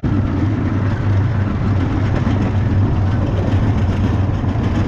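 Engine of a small utility vehicle running steadily while it drives along, a constant low hum.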